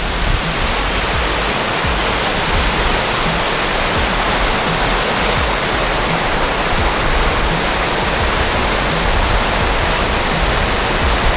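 A steady, even rushing noise that holds at one level throughout, with no rhythm or pitch.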